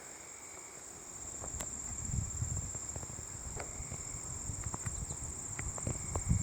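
Steady high-pitched insect chirring, with a low irregular rumble rising about a second in and a few sharp clicks.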